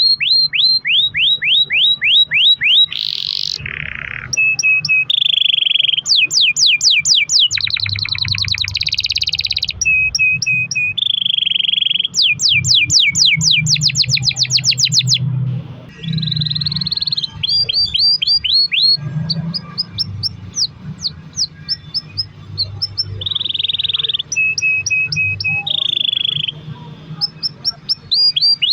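Domestic canary singing a long rolling song: runs of rapid, evenly repeated falling notes that switch every second or two to steady buzzing trills, with barely a break.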